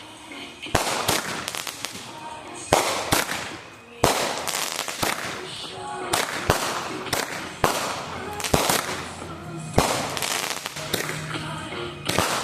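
Fireworks going off: a dozen or so sharp bangs and pops at uneven intervals, with music playing underneath.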